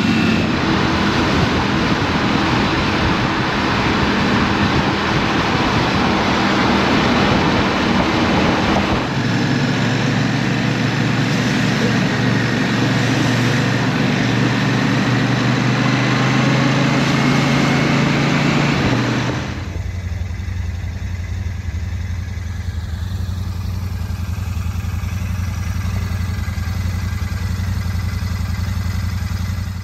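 Royal Enfield Shotgun 650's parallel-twin engine running under way, with wind and road noise, its note rising and falling with the throttle. About twenty seconds in it changes to a steadier, lower engine note with much less wind noise.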